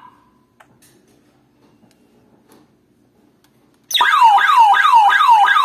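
Home security alarm siren starting loud about four seconds in after a few seconds of quiet with faint clicks. It is a fast repeating falling wail, about three sweeps a second, and it is the armed system going into alarm.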